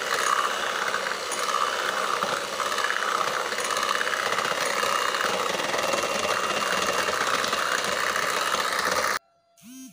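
Electric hand mixer running steadily with a faint whine, its beaters whisking flour into cake batter, then cutting off abruptly about nine seconds in.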